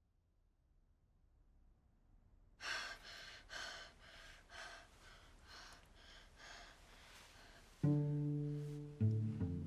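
Short, sharp breaths, about two a second, growing fainter over four seconds. About eight seconds in, low bowed strings (cello and double bass) come in loud with a sustained deep note, moving to another note about a second later.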